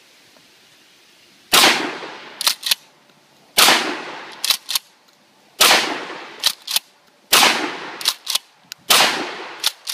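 A 12 gauge pump-action shotgun fired five times, about every one and a half to two seconds. Each shot is followed about a second later by two sharp clicks as the pump is racked back and forward to chamber the next shell.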